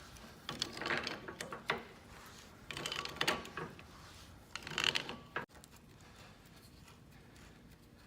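Rusty adjustable wrench's jaw and adjusting screw being worked back and forth, metal clicking and scraping in three short bouts. The seized mechanism is just coming loose after a soak in penetrating oil. It goes quiet about halfway through.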